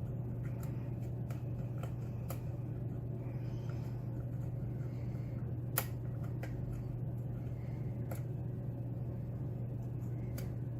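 Faint scattered clicks of a lock pick working the pins of a Den Brass Schlage pin-tumbler lock under tension, with one sharper click about six seconds in. A steady low hum runs underneath.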